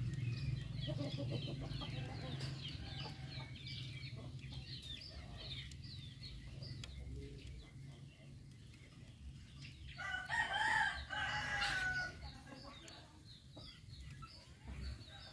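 Chickens: a run of short, high cheeps, several a second, fades out over the first half, then a rooster crows once for about two seconds, loudest about ten seconds in.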